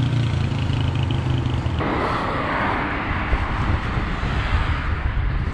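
Road traffic heard from a moving bicycle: a nearby vehicle's engine running low and steady for the first couple of seconds, then an abrupt change to a steady rush of wind and road noise.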